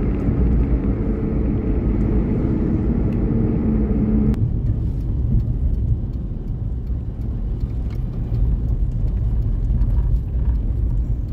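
Car driving along a highway with a steady low road and engine rumble. Over roughly the first four seconds a louder droning hum sits on top of it and then cuts off suddenly.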